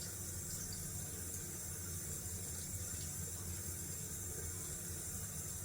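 A cold-water tap running steadily into a bathroom sink.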